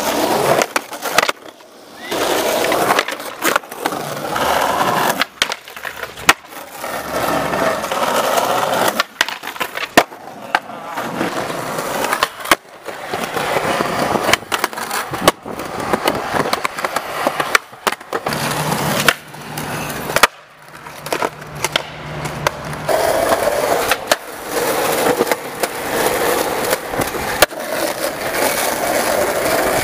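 Skateboard wheels rolling over concrete and asphalt, broken by sharp clacks of the board popping and landing, over and over across several tricks.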